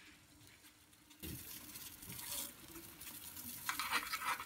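Loose chocolate chai tea fizzing and simmering in hot water in a small steel saucepan on a gas burner. The sound starts suddenly about a second in and grows a little toward the end.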